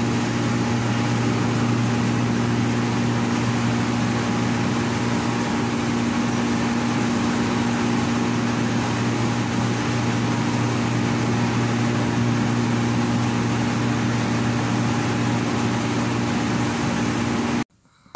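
Corn mill machinery running with a steady, loud drone and hum, cutting off abruptly near the end.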